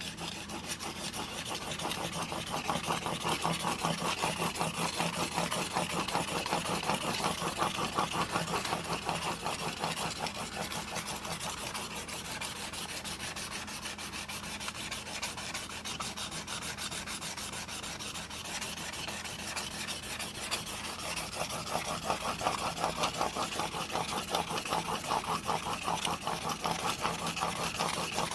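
Steel single-bevel broadhead edge honed back and forth on a 1200-grit diamond sharpening plate in a roller guide: a steady, scratchy rasp of rapid short strokes. The strokes are softer through the middle. This is fine-grit honing to raise a small burr.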